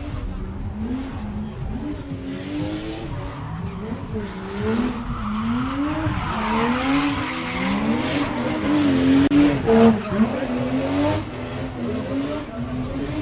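Drift cars sliding around the pad, engines revving up and down again and again while the tyres screech. The screeching and revving are loudest a little past the middle.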